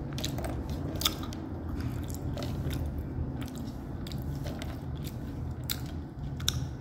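Close-up chewing of crunchy edible clay (mitti) chunks with the mouth closed: irregular sharp crunches and crackles over a steady low hum.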